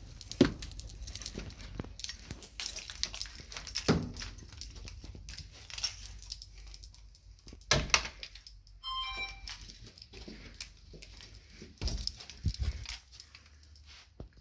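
Footsteps, handling rumble and irregular clicks and knocks from someone walking through empty rooms while holding the recording phone, with a brief run of high, falling chirps about nine seconds in.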